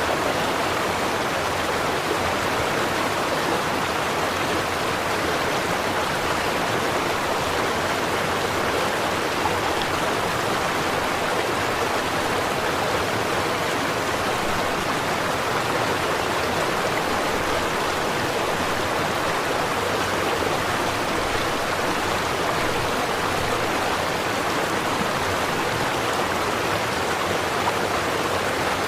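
Stream water flowing and babbling over stones in a steady, even rush.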